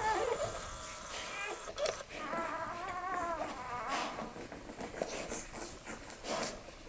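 Newborn Australian Shepherd puppies squeaking and whining in short, thin, wavering calls during the first three seconds or so. After that come soft, wet licking and suckling smacks as the mother licks the nursing litter.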